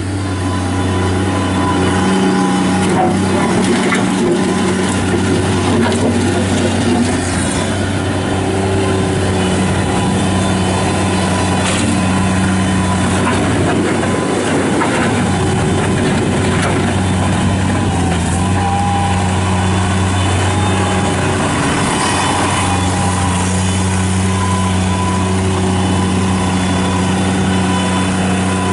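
Bobcat MT55 mini track loader's Kubota diesel engine running steadily; through the middle stretch its note wavers and shifts as the machine is worked, then settles back to a steady hum, with a few brief knocks along the way.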